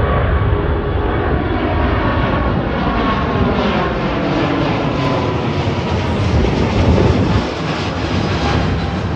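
Airbus A350-900 with Rolls-Royce Trent XWB turbofans running at take-off power: a loud, steady jet roar with slow sweeping tones through it, loudest about seven seconds in and easing slightly after.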